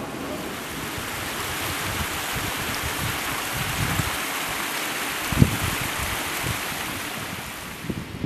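A volcanic fumarole vents steam with a steady rushing hiss. Wind buffets the microphone with low rumbles and one sharp thump about five seconds in.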